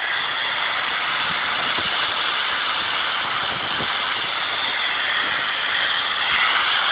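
A motor vehicle's engine running steadily under a loud, dense rushing noise that swells a little near the end.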